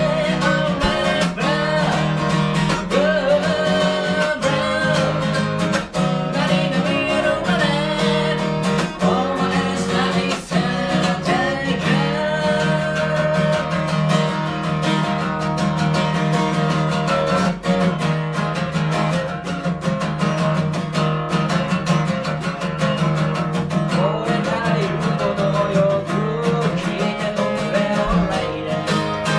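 Acoustic guitar strummed steadily in a live solo performance, with a man singing over it.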